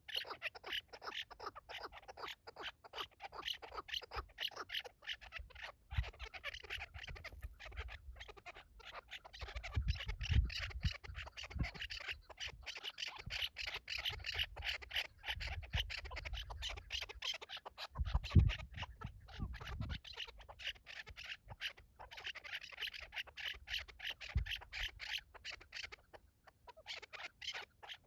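Chukar partridge calling in a fast run of short, repeated clucks, with a few dull low thumps in between.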